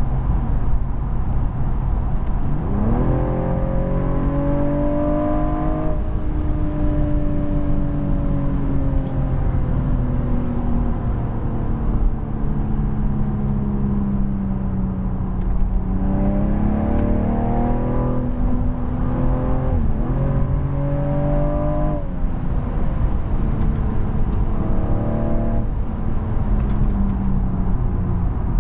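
BMW M135i's turbocharged 3.0-litre straight-six, heard from inside the cabin over steady road and tyre noise. About three seconds in, its note climbs sharply under hard acceleration, then eases slowly down for about ten seconds. Later it runs through several shorter climbs and falls, with a quick dip about twenty seconds in.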